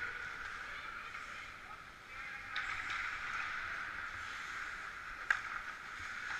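Ice hockey game sounds in an indoor rink: a steady hiss of play on the ice, with one sharp crack about five seconds in.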